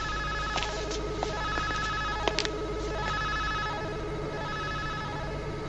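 Warbling electronic tones at several pitches at once, like a trilling bell, over a low hum, with a few sharp clicks in the first half and a brief break about two and a half seconds in: a sci-fi laboratory test-equipment sound effect.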